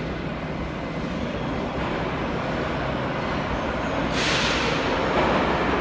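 Em-501-series (81-501) metro train pulling into the station, its rumble growing louder as it nears, with a sudden loud hiss from its brakes setting in about four seconds in.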